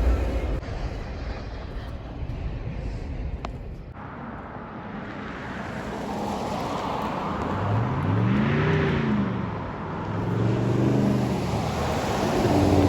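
A motor vehicle going by on a road, tyre noise building, its engine pitch rising and falling around the middle. A low rumble at the start fades out within the first few seconds.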